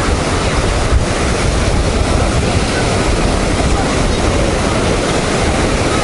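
Stormy Black Sea surf breaking on a sandy beach: a steady rushing wash of waves, with wind buffeting the microphone.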